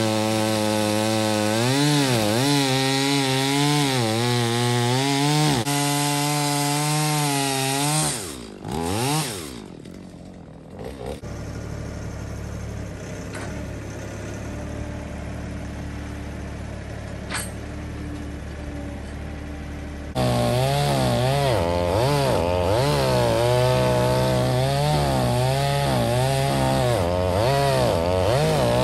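Stihl MS 250 45cc two-stroke chainsaw cutting wood at full throttle, the engine pitch sagging and recovering under load. About 8 s in it revs briefly and drops to a steady idle, then at about 20 s it goes back to full throttle and cuts again.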